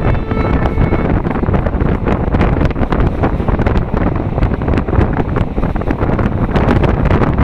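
Wind buffeting the microphone on a moving passenger train, over the steady rumble of the carriage with frequent short clatters and knocks.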